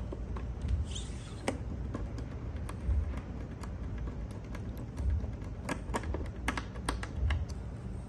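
Irregular small clicks and ticks of a hand screwdriver turning a screw into a smart door lock's metal back panel, thickest past the middle, with a few dull bumps from the door being handled.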